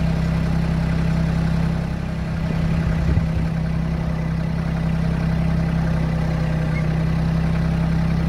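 Compact tractor's engine idling steadily, with a short low bump about three seconds in.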